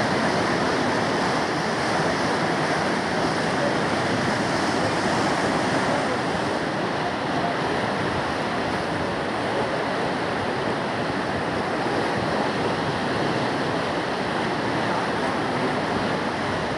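Swollen river in flood, its fast water rushing in a steady, unbroken wash of noise.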